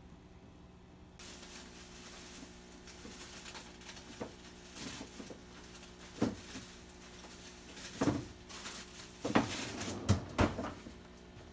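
Quiet room tone with a steady low hum and a handful of light knocks and taps, the loudest about eight to ten seconds in.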